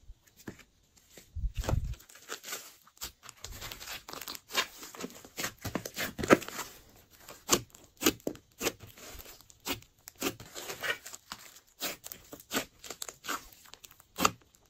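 Glossy slime being pressed, poked and stretched by hand, giving off an irregular run of sticky pops, clicks and squelches as air pockets burst. There is a low thump about a second and a half in.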